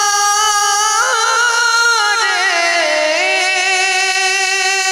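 A man singing a naat unaccompanied into a microphone, drawing one syllable out into a long, high held note. The note wavers in ornaments and dips lower about two to three seconds in, then climbs back and is held again.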